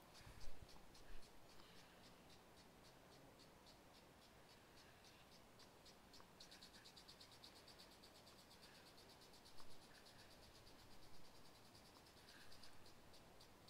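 Crickets chirping in a fast, even pulse, faint and high-pitched, swelling a little a third of the way in and again near the end. A few soft thumps come near the start and around the middle.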